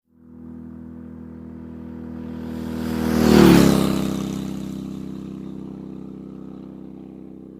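A motor vehicle driving past: its engine hum swells to loudest about three and a half seconds in, dips slightly in pitch as it passes, then fades away.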